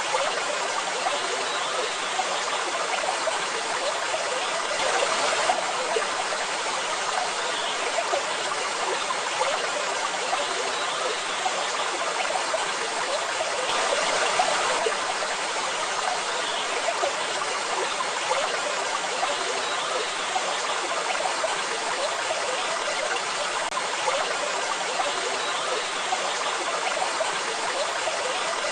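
Steady rush of falling and splashing water from a waterfall or stream, with slight swells in the flow now and then.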